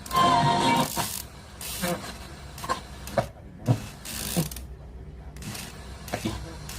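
Sharp GF560 radio cassette recorder's radio between stations: irregular bursts of static hiss and clicks, with a brief whistling tone about a second in and short drop-outs to near silence midway.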